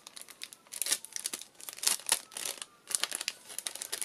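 Clear cellophane packaging crinkling and rustling in short, irregular bursts as hands open it and handle the paper ephemera inside.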